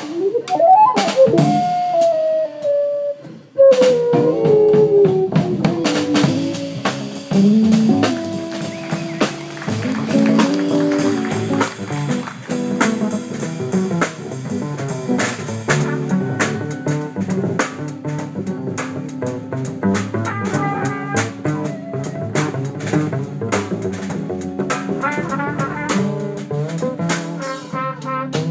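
Live jazz band playing with drum kit, upright bass and electric guitar. In the first few seconds a lead line slides up and down in pitch.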